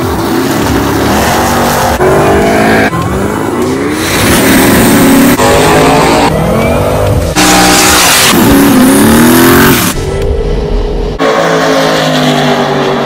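Drag-race cars' engines revving and accelerating hard, in short clips cut together every second or two, with a stretch of tyre noise a little past the middle.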